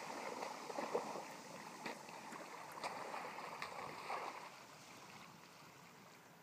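Shallow seawater sloshing and splashing as a big snapper is dipped and swished through the wash at the water's edge, with small waves lapping. A few small sharp splashes stand out around the middle, and it grows quieter over the last two seconds.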